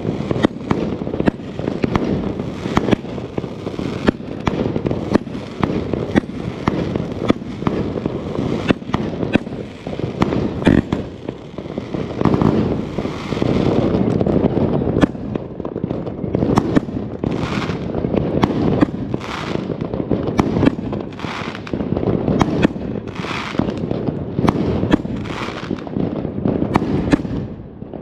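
Extreme Fireworks Excalibur cake, a 99-shot firework battery, firing continuously: a dense stream of sharp bangs and crackle. In the second half it settles into a run of stronger bursts, about one a second.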